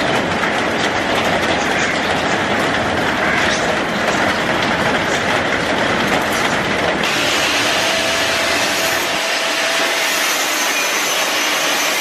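Heavy rain pouring down, a dense steady hiss. About seven seconds in it cuts abruptly to a steady high hiss from metalwork on a steel square-pipe frame with sparks flying, with a faint whine for a couple of seconds.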